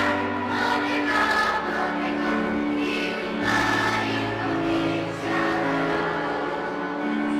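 Children's choir singing a song in long held notes over a low sustained accompaniment.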